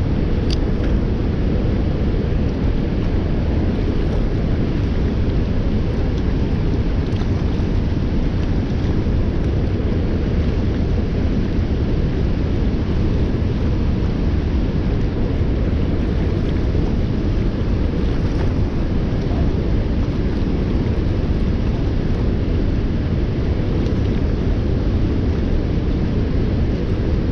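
Steady low roar of a waterfall and the fast, churning river below it, unbroken throughout.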